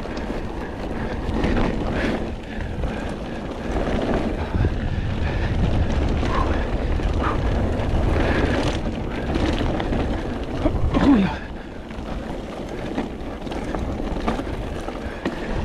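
Mountain bike being ridden along a dirt trail: wind buffeting the camera microphone over a steady rumble of tyres on the ground, with a few short knocks and rattles from the bike.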